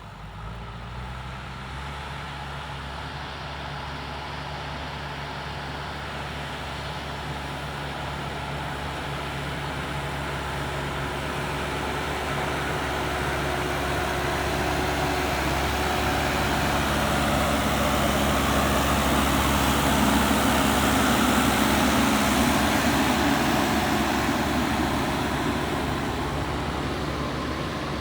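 Diesel engine of a JCB 3DX backhoe loader running steadily, growing louder to a peak about twenty seconds in and then easing off.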